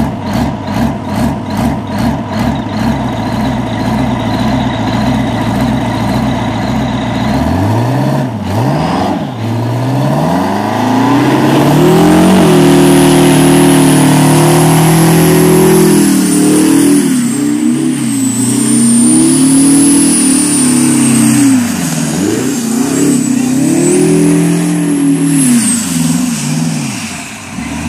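Bandag Bullet burnout truck's engine idling with a lumpy pulse, about two beats a second. About eight seconds in it is blipped, then held at high revs that swing up and down through a long burnout, with a thin, wavering high squeal from the spinning tyres over it.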